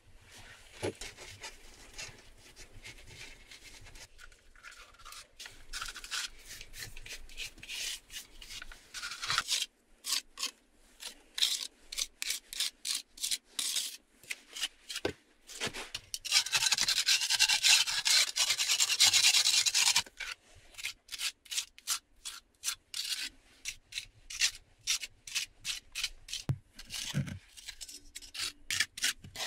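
Trowel scraping and spreading mortar over the bricks of a small stove: a run of short scraping strokes, with one longer, louder scrape past the middle.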